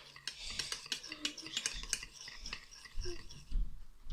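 A utensil stirring and scraping a thick soap mixture in a bowl, with repeated quick clicks against the bowl and a low bump about three and a half seconds in.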